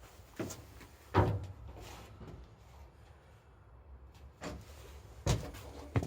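A handful of separate knocks and thuds: one just before half a second, the loudest about a second in, then more around four and a half, five and a quarter and six seconds in.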